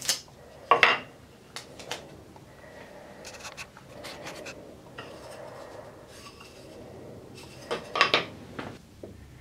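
Small wooden pieces handled on a wooden workbench: masking tape peeled off a glued block, with a few sharp wood-on-wood knocks at the start, about a second in and again around eight seconds in, and softer rubbing and scraping between them.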